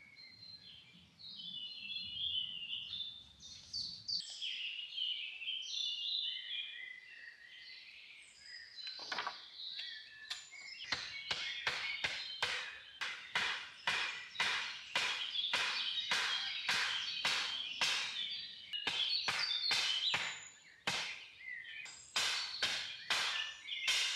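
Songbirds chirping and singing. About ten seconds in, a steady run of short, noisy strokes starts at about two a second and becomes the loudest sound.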